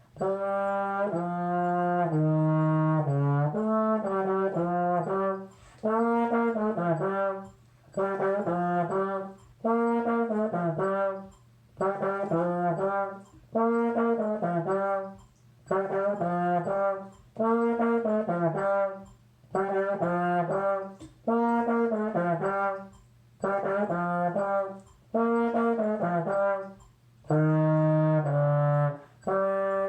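Solo trombone playing a tune at 124 beats per minute, in short phrases of a few notes about every two seconds with brief breaks between them.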